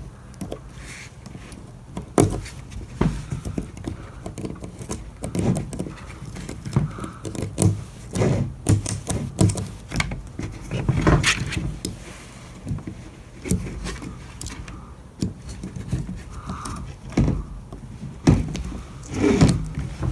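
Irregular knocks, taps and scrapes of hands and a knife working on a window screen frame while the end of the rubber spline is cut off.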